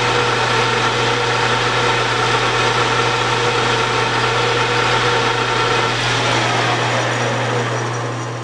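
Metal lathe running as a carbide insert cuts a bushing: a steady machine hum with a cutting noise over it. About six seconds in the cut ends and the sound changes, then it fades out.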